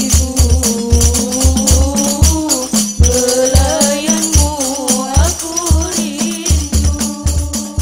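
Hadroh ensemble: girls singing a devotional song together into microphones over a steady, even beat of rebana frame drums.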